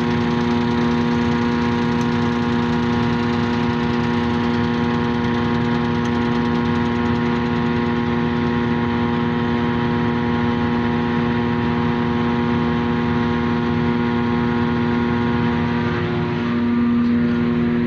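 Self-propelled forage harvester running with its chopper drum turning, a steady whine with a constant pitch, a little louder near the end, while the shear bar is set in towards the knives.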